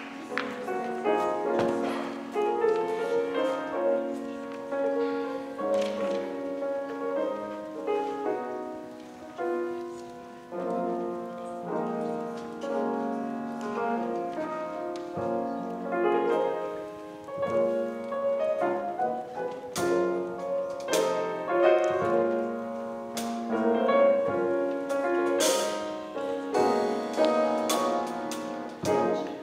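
Instrumental piano music: chords and a melody played with no singing.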